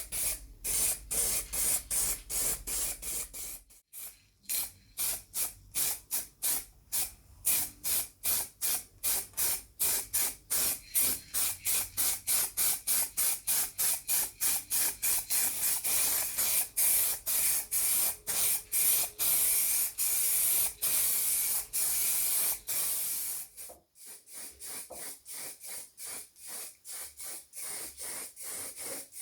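Rapid, evenly repeated short bursts of spraying hiss, about three a second. The bursts pause briefly about four seconds in and turn quieter for the last few seconds.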